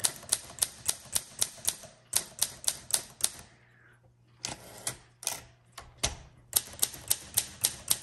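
Keys of a 1957 Olympia SM3 manual typewriter struck one after another, about four sharp strikes a second, as each key is tried in turn. The strikes come in three runs, with a break about halfway where the carriage is returned with a couple of heavier knocks.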